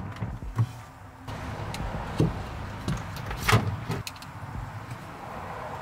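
A hand crimping tool and wires being handled while a butt splice is joined onto a wire: a few short clicks and rustles, the sharpest about two and three and a half seconds in, over a steady faint hiss.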